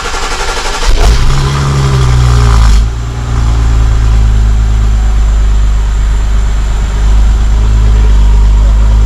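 BMW 535i's N55 turbocharged inline-six, fitted with a catless downpipe, starting for the first time. It cranks briefly, catches about a second in with a short flare of revs, then settles to a steady idle about three seconds in.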